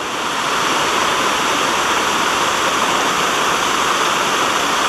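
Waterfall pouring into a stream pool: a steady rush of falling water that swells a little louder within the first second, then holds even.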